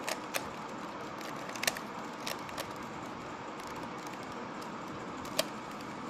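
Plastic layers of a 3x3 Rubik's cube clicking as they are turned by hand: about six sharp, irregular clicks, the loudest near the middle and near the end, over a steady background hiss.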